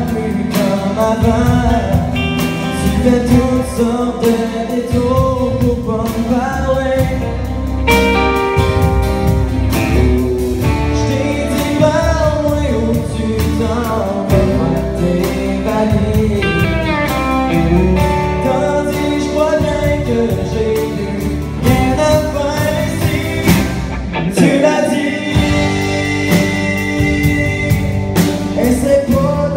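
Live band playing a song: a male lead singer singing in French over acoustic guitar and electric guitar.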